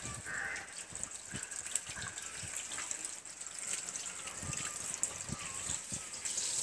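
Water running from a garden hose held in a small child's hands: a steady gush, with scattered soft knocks as the hose is handled.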